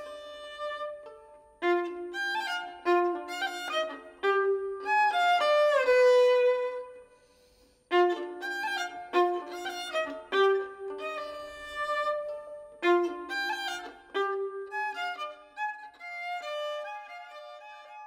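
Solo violin playing a melody of separate bowed notes, with a slide down in pitch about six seconds in and a short break about a second later before the playing resumes.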